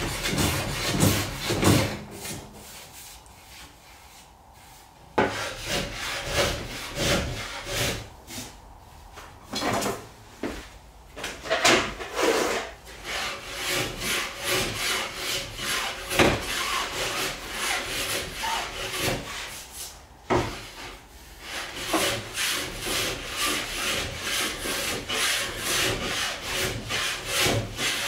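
Hand plane shaving the edges of a hardwood frame: a run of repeated scraping strokes of the blade across the wood, with a short lull near the start and quicker, shorter strokes, about two a second, toward the end.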